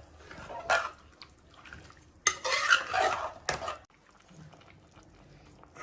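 Metal spoon stirring chicken curry in a pressure cooker pot, scraping and knocking against the metal: a single knock about a second in, then a busier spell of scraping and clanks from about two to three and a half seconds in.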